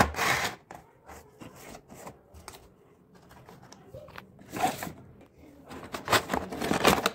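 Clear plastic packaging tray crackling and rustling as a handheld infrared thermometer is set into it and packed into its cardboard box, with a knock right at the start and louder bursts of crackling about four and a half seconds in and again near the end.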